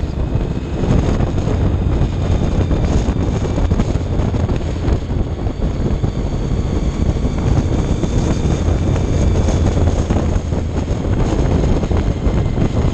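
Wind buffeting a helmet-mounted camera at road speed, a steady noisy rumble, with a 2000 Honda RC51 SP1's V-twin engine running underneath as the bike rides along.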